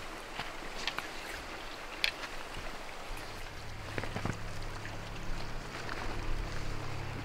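Rustling of clothing and pack gear with scattered clicks and footsteps as hunters walk up a slope, over a steady noisy background; a low steady hum comes in about three seconds in.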